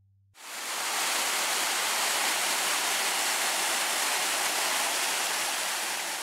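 Waterfall pouring over rock ledges into a shallow pool: a steady, even rush of falling and splashing water that cuts in abruptly just after the start.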